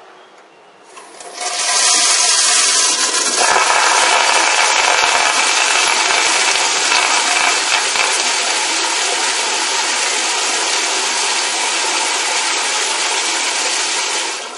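Toilet flushing: rushing water starts suddenly about a second and a half in, grows fuller a couple of seconds later, runs loud and steady, and drops away at the end.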